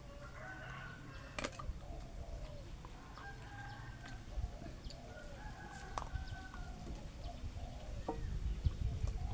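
A series of drawn-out animal calls, one after another, each lasting about a second, over a low rumble.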